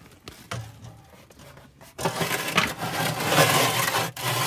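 A pumpkin being pushed into the oven of a brick stove: a few light knocks, then from about two seconds in a loud rough scraping and rubbing that lasts about two and a half seconds.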